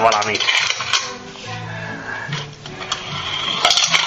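Plastic pump-action spinning top being pumped by hand and spinning on a wooden floor: a low hum that shifts in pitch, with a clinking rattle and clicks.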